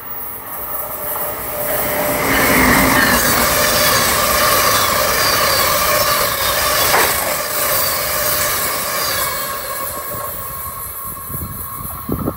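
Amtrak passenger train of stainless-steel Amfleet coaches passing at speed: a rush of wheels on rail that swells over about two seconds, holds, then fades as the train goes by, with a steady high whine over it.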